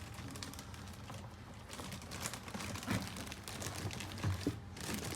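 Kettle box and its packing being handled: rustling with scattered small clicks and knocks, busier from about two seconds in.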